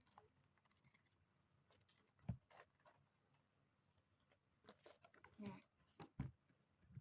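Near silence with a few faint, scattered taps and rustles from small objects being handled.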